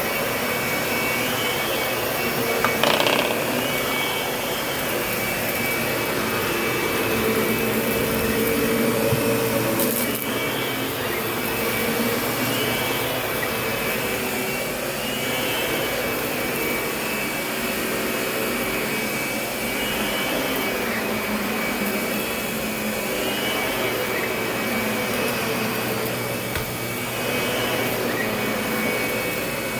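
Lindhaus vacuum cleaner running steadily, its motor whine rising and falling about every two and a half seconds, with a brief knock about three seconds in.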